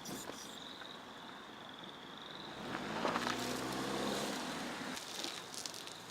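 A car engine speeds up, its pitch rising, swelling from about three seconds in and fading again about two seconds later.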